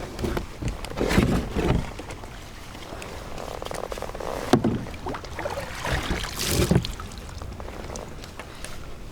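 Knocks and rubbing from handling gear and a landed bass in a kayak, coming in three irregular clusters: about a second in, around the middle, and again a little later.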